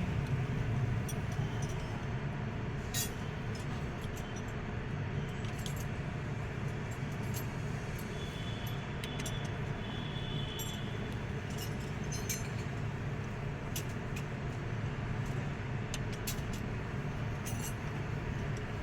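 Metal tools and engine parts clinking now and then over a steady low rumble.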